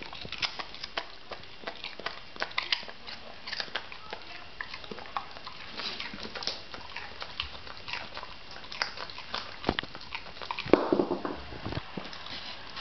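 Springer spaniel crunching a carrot: irregular sharp crunches of chewing, with one louder burst near the end.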